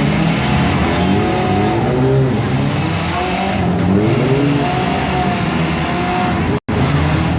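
Several demolition derby cars' engines running hard at once, revving up and down. The sound cuts out for an instant near the end.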